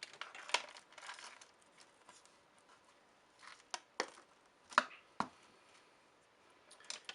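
Hands handling an RGB LED strip and its wires while sticking the strip down. There is light rustling in the first second or so, and several short, sharp clicks and taps spread through.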